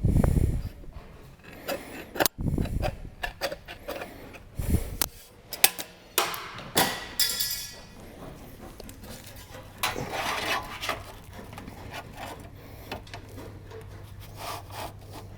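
Irregular knocks, thumps and scraping from sheet-metal roofing pieces being handled and slid into place on a wooden roof deck. A short hissing scrape comes about seven seconds in, and a low steady hum joins about ten seconds in.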